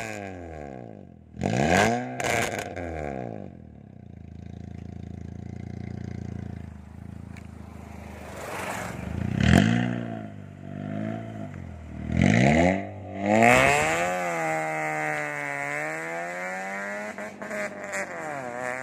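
Honda Brio's 1.2-litre four-cylinder engine through a full-system NDK aftermarket exhaust (downpipe, front pipe, loop resonator, DK 01 v2 muffler), loud. It is blipped in sharp revs, in quick pairs, three times, then runs steadier under way with its pitch rising and falling gently.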